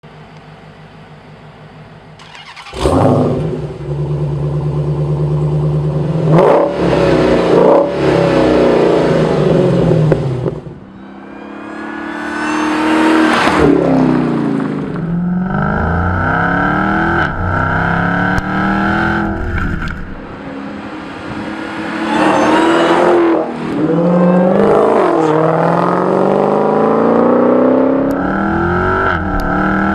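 Dodge Challenger Hellcat's supercharged 6.2-litre Hemi V8 exhaust. It comes in loudly about three seconds in and holds a fast steady idle with a few throttle blips. Then the car accelerates hard through the gears, the pitch climbing and dropping back at each shift.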